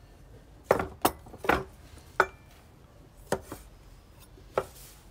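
Kitchen utensils and ceramic bowls being handled on a wooden table and cutting board: about seven irregular knocks and clinks, one ringing briefly like china.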